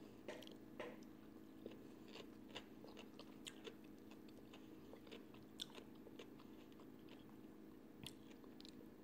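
Faint chewing with scattered small crunches and clicks: a person eating crispy fried chicken with her fingers. A low steady hum lies underneath.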